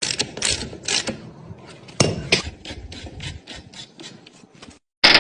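Quick repeated scraping strokes, a few a second, growing fainter and sparser, followed by a short loud burst near the end.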